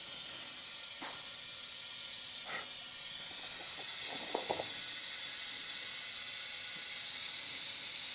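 Compressed air from a leak-down tester hissing steadily out of a VW T5 diesel engine's cylinder, getting louder a few seconds in; the gauge shows 40–50% leakage, a sign of badly leaking compression. A few light knocks from handling the tester.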